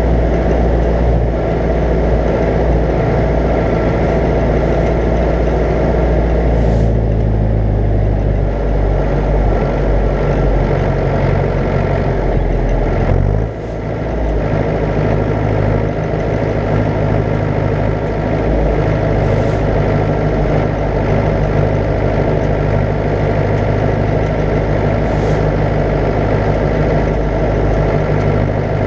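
Zetor 10145 tractor's diesel engine running steadily under load while towing an 8 m³ slurry tanker. Its pitch shifts about seven seconds in, and about halfway through it briefly drops off, then picks up again.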